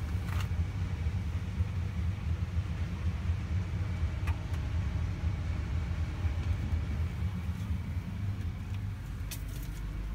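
Caterpillar off-highway haul truck's diesel engine idling steadily, a low rumble heard inside the cab, with a few faint clicks from things being handled.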